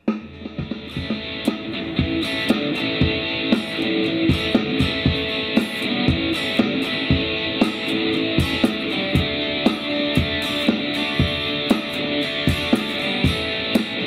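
Electric guitar played through a Positive Grid Spark 40 amp on a clean, no-overdrive setting, strumming chords over a steady drum-machine beat from a Trio pedal. The guitar comes in right at the start, joining the drum beat.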